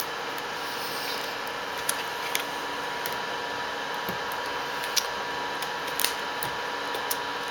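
A few light, scattered clicks and taps of a replacement laptop LCD panel being handled and set into the lid, over a steady background hum.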